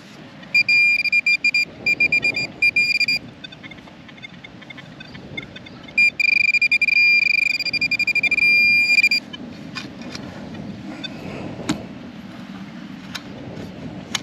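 Metal detector's high-pitched beep signalling metal in a dig hole: first a quick stutter of short beeps, then after a pause one longer, steady tone. After that come a few light clicks and scrapes.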